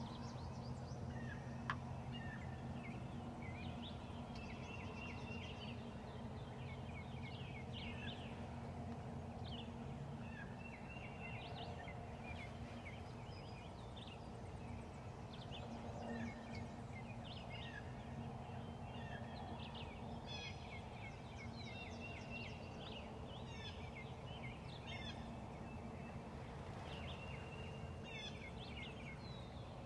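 A wild turkey gobbling, with songbirds chirping throughout and a steady low hum underneath. A single sharp click comes about two seconds in.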